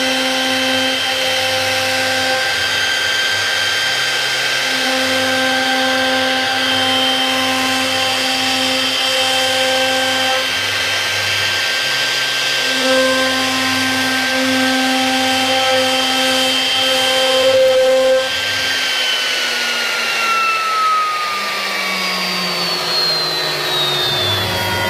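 CNC router carving wood: a steady spindle whine with lower motor hums switching on and off as the machine moves. About nineteen seconds in, the whine begins to fall slowly in pitch, as when the spindle slows down.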